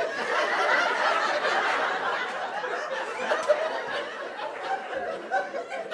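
A theatre audience laughing, breaking out suddenly at the start and carrying on.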